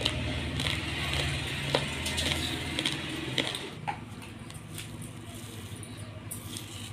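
Raw basmati rice grains rustling, with sharp clicks of a steel spoon against a steel plate as the spoon is worked into the rice, over a steady low hum.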